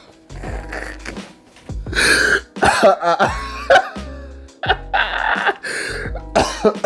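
Background music with a deep bass line, over which a person coughs and clears their throat several times in short raspy bursts.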